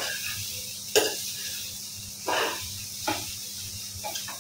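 Vegetables frying in a pan with a steady sizzling hiss, the tempering for poha cooking until the raw smell is gone. A utensil knocks against the pan once about a second in and scrapes briefly a little past the middle.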